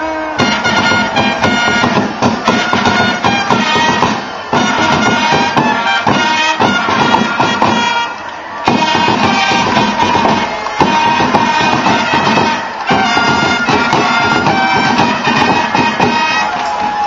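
Marching band of pipers and snare drummers playing a tune: high-pitched pipe melody over a steady low note, with rattling drum strokes and short breaks between phrases.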